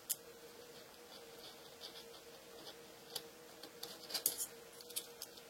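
Scattered small clicks and light scratching of hand tools working vinyl wrap film, with a sharp click right at the start and a cluster of clicks about four seconds in. A faint steady hum runs underneath.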